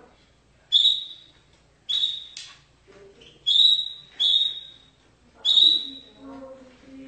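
Canary singing: a series of short, loud, high-pitched notes about a second apart, each at much the same pitch with a brief fading tail.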